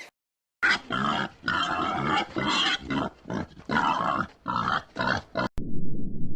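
A pig grunting over and over in short, rough, irregular bursts. Near the end this cuts to a low, steady rumbling noise.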